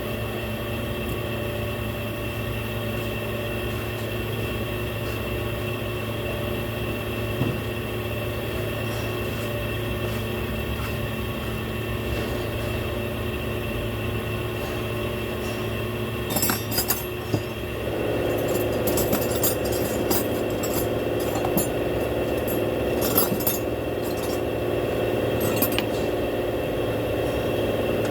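Steady mechanical hum with several fixed tones; it shifts up in pitch and gets a little louder about two-thirds of the way through. From just past halfway, scattered sharp metallic clinks, like hand tools knocking on metal.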